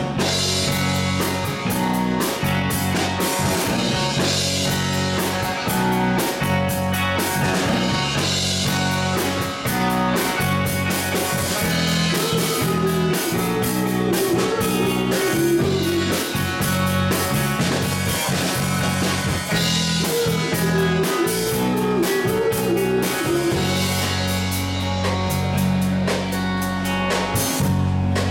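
Live blues-rock band playing: two electric guitars, electric bass and drum kit, with steady bass notes under regular drum hits and a wavering melody line through the middle.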